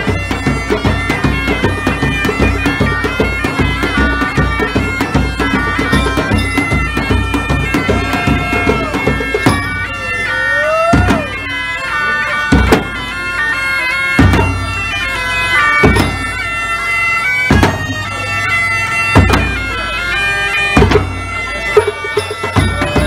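Bagpipes playing a tune over their steady drones, with a large bass drum. From about ten seconds in, the bass drum beats heavily about once every second and a half.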